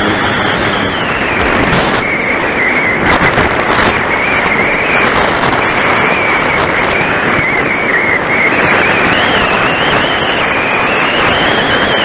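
Loud rush of wind and airflow over the onboard camera of a Phoenix S RC glider in flight in gusty wind, with a wavering high whistle that drops in pitch about two seconds in and rises again near the end.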